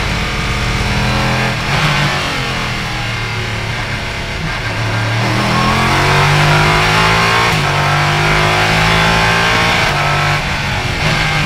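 Ligier JS P320 LMP3 race car's Nissan V8, heard from the cockpit: the engine note falls as the car slows for a corner over the first few seconds, then rises as it accelerates hard, with an upshift about two-thirds of the way in and another near the end.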